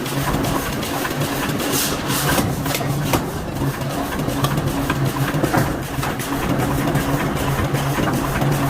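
Forge-shop machinery running steadily with a low hum, scattered with small clicks and ticks and a short burst of hiss about two seconds in.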